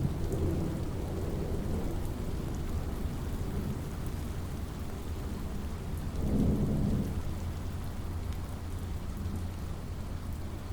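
Steady rain falling, with thunder rumbling low throughout; the rumble fades at the start and swells again about six seconds in before dying back.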